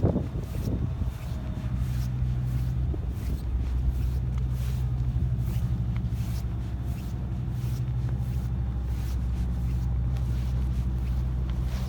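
An engine running steadily with a low, even hum, with faint scattered ticks over it.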